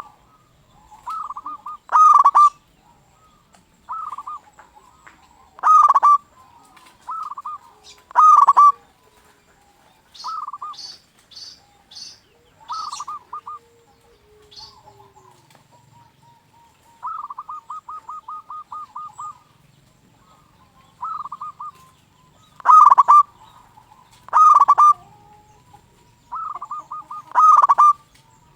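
Zebra dove (perkutut) cooing: short phrases of rapid coo notes repeat about every two seconds, the loudest ones ringing and strong. Partway through comes a longer run of quick even notes, and a few brief high chirps from a smaller bird sound about a third of the way in.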